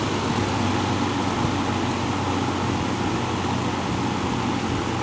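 Vintage Emerson Electric 20-inch box fan running on its low speed: a steady rush of air over a low, even motor hum.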